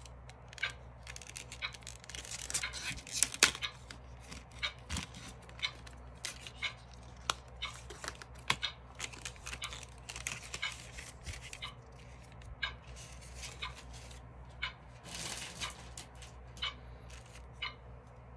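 Stiff clear plastic packaging crackling and clicking as a pair of tweezers is worked out of its blister pack, loudest around three seconds in and again near the end. Beneath it a clock ticks about once a second.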